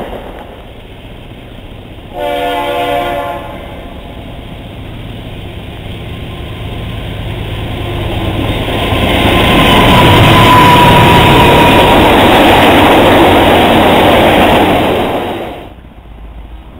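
A diesel freight train's air horn sounds one blast of a bit over a second about two seconds in. Then a diesel freight locomotive and its train pass at speed, the engine and wheel noise building to loud for several seconds with a thin whine partway through, and dropping away suddenly near the end.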